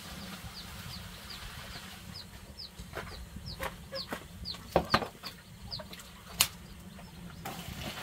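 Chicks peeping over and over in short, high, falling cheeps, two or three a second. A few sharp knocks cut in around the middle, the loudest about six seconds in, as a plastic dipper and basin are handled.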